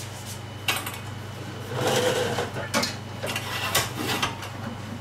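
Kitchen handling noises: a few light clicks and knocks and a rustle about two seconds in, over a steady low hum.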